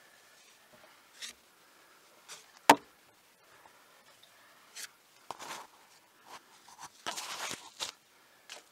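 Scattered rustles, scrapes and small knocks of a person moving about an attic among joists and blown-in insulation, handling the camera and flashlight. There is one sharp, loud knock about a third of the way in, and a longer stretch of rustling near the end.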